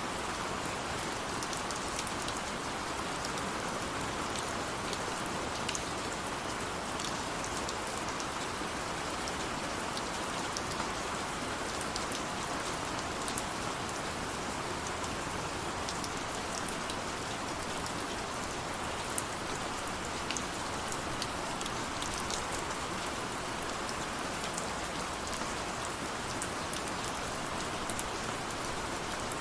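Steady rain falling, a continuous hiss with scattered individual drops ticking.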